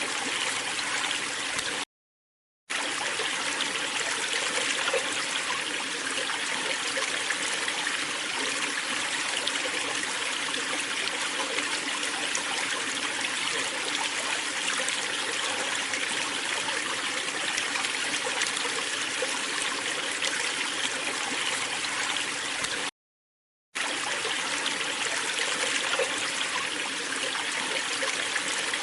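Waterfall splashing and rushing steadily. The sound cuts out completely twice for under a second, about two seconds in and again near the end.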